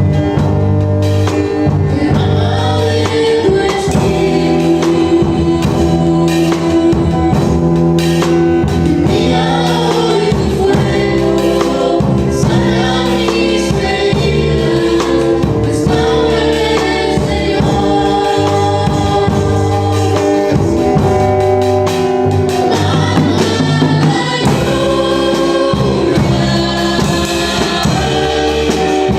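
A Christian praise song sung by a vocal group in chorus over a band, with a steady bass line and percussion.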